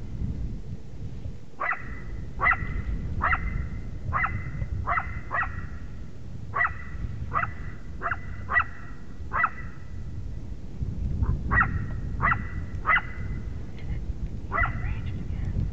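Coyote barking repeatedly, short sharp barks one or two a second with brief pauses, over a low rumble of wind on the microphone.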